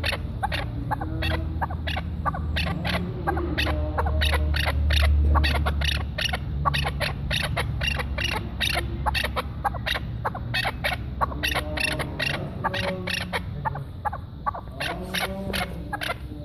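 Chukar partridge calling: a long run of sharp chuck notes at about three a second, dropping off briefly near the end and starting again, over a low rumble.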